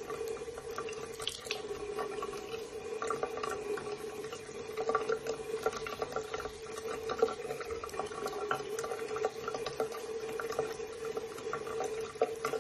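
Thin stream of water running from a bathroom tap into a sink basin: a steady trickling splash with a constant ringing note under it.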